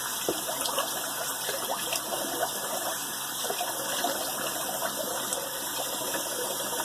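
Cold tap water running into a sink with light splashing, as water is splashed onto the face for a post-shave cold rinse.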